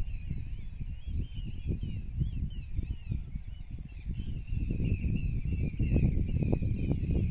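Small birds chirping and twittering in many quick high calls, over a louder low rumble that strengthens about halfway through.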